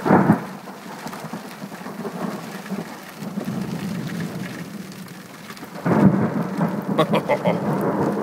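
Thunder from nearby lightning: a sharp crack right at the start that rumbles away, with steady rain falling throughout. About six seconds in, a second loud thunderclap rolls on in several peaks.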